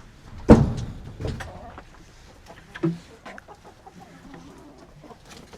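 Chickens clucking, with a sharp knock about half a second in and a softer knock about a second later.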